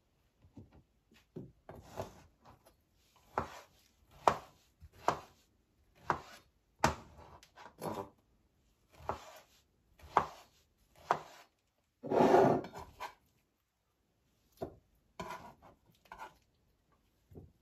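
Kitchen knife dicing firm mango flesh on a cutting board: irregular chopping strokes, roughly one a second, with one longer, louder stroke about twelve seconds in.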